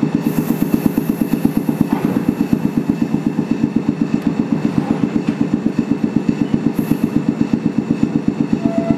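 Inside a Manyo Line De7070 tram: a steady, loud, rhythmic chugging of about nine pulses a second that neither rises nor falls in pitch.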